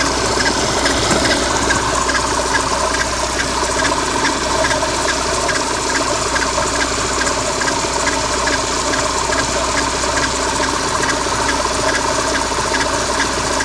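VAZ-2110 engine running at idle with its alternator belt removed, a regular light tick a few times a second over the steady running: the extraneous noise being hunted, which persists although the timing-belt rollers have been replaced and the water pump has been ruled out.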